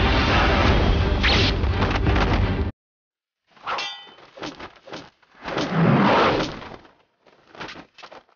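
Fight-scene sound effects. Loud dense sound cuts off abruptly about two and a half seconds in. Then comes a single ringing metallic clang, followed by several whooshes and hits, the biggest about six seconds in.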